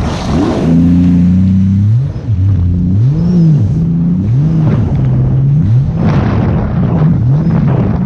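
Jet ski engine running hard, steady at first and then rising and falling in pitch over and over, about once a second, with a few bursts of water and wind noise.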